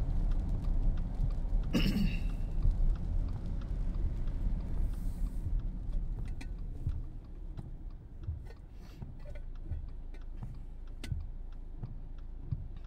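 Car cabin road noise on a wet road: a low rumble with tyre hiss that fades as the car slows and comes to a stop about halfway through. After that there is only a quieter steady hum with faint scattered ticks.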